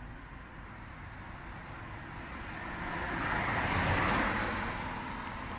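A passing car on the road: its tyre and engine noise swells to a peak about four seconds in, then fades, over a steady background of traffic noise.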